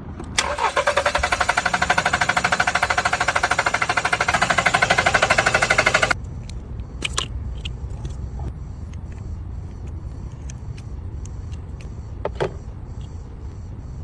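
Car engine cranked over by its starter motor in fast, even pulses for about six seconds. The cranking stops suddenly and the engine runs on with a low, steady rumble and faint irregular ticks.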